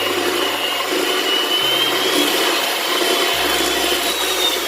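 Electric hand mixer running steadily, its beaters whisking a batter of eggs, sugar, butter and oil in a bowl, with a thin high motor whine over the churning.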